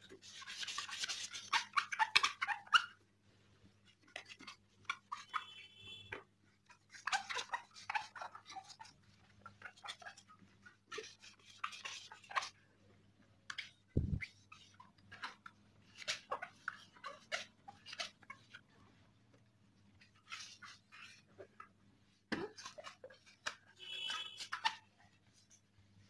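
Cloth rubbing over a motorcycle helmet's hard glossy plastic shell in bursts of quick, scratchy wiping strokes, buffing off dried cutter-polish residue. There are two dull knocks, one about midway and one near the end.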